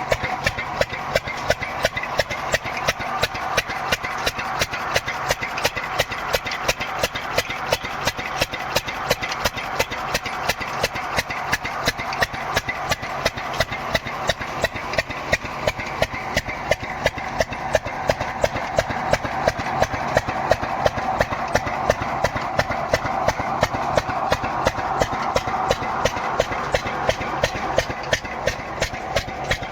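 Engine running steadily at an even beat of several sharp knocks a second, driving the pump that waters a wheat field.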